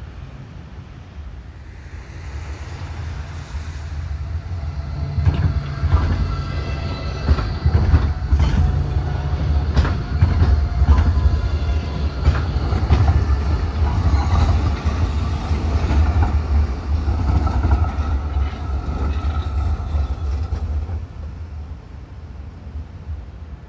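A passing train: a heavy low rumble that builds over the first few seconds, with repeated clacks and some steady whining tones, then dies away near the end.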